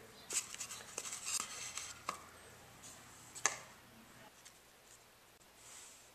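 A run of light taps and clicks from a stiff, resin-coated fiberglass part being handled over foam blocks, with one sharper click about three and a half seconds in as it is set down; quieter after that.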